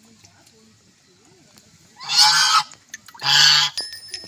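Duck quacking: two loud, harsh calls of about half a second each, the first about two seconds in and the second about a second later.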